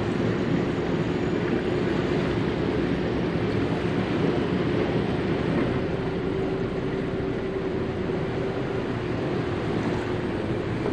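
Motor yacht's engines running steadily at slow speed: an even drone with a held hum.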